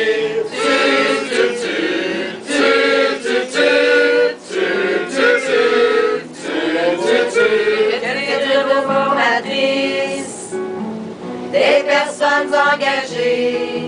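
Mixed choir of men and women singing a song in French, accompanied by an acoustic guitar, with a brief pause in the singing about ten seconds in.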